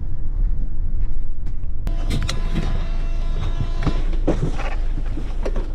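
Low steady rumble of a coach bus heard from inside the cabin. From about two seconds in, light music and a few scattered clicks and rustles join it.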